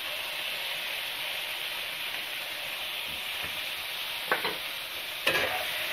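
Sliced flat beans frying in hot mustard oil in a kadai: a steady sizzle. A couple of short clicks come near the end, as the spatula touches the pan.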